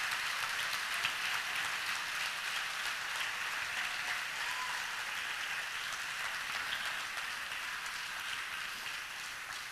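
Church congregation applauding, the clapping slowly dying down.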